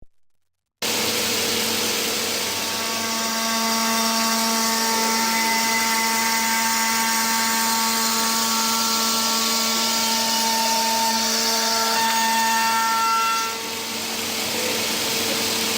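Bottero Pratica Plus CNC glass-machining centre milling glass: a steady spindle whine with several high tones over a constant hiss, starting just under a second in. Near the end the higher tones drop out and the sound gets a little quieter.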